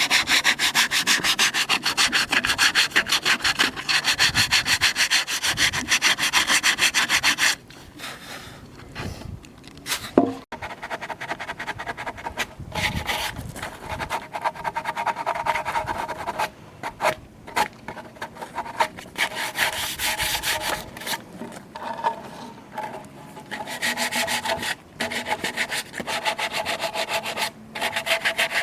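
Wood being sanded by hand-held rubbing, with fast, even strokes that stop about seven and a half seconds in. After that come quieter, intermittent rubbing strokes, with one sharp knock about ten seconds in.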